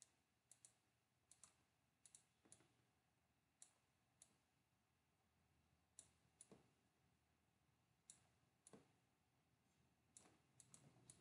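Faint computer mouse clicks, a dozen or so scattered through otherwise near silence, many in quick pairs.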